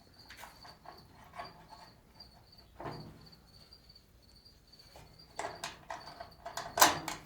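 Cricket chirping steadily in short, evenly repeated high pulses. Over it come several clicks and knocks from handling the bolt and flat washer as they are fitted into the garage door assembly, with the loudest knock near the end.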